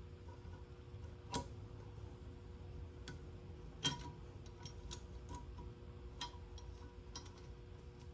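Scattered light metal clicks and taps of hand tools on a cylinder head, the loudest about four seconds in, as a clamp-style valve spring compressor is set on a valve spring, over a faint steady hum.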